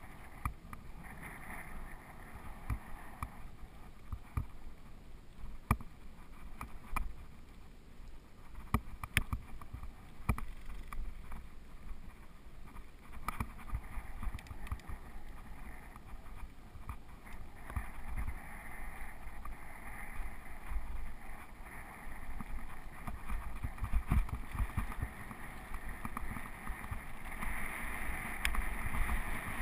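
Mountain bike rolling fast over a gravel track: tyres crunching on the loose surface while the bike rattles and knocks sharply over bumps, many times, over a low rumble of wind on the microphone.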